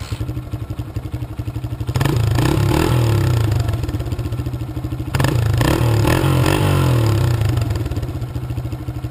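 1999 Honda XR100's small four-stroke single-cylinder engine, just kickstarted with the soda-can extensions removed from its exhaust, idling and revved twice, about two and five seconds in, each time for a couple of seconds before dropping back to idle.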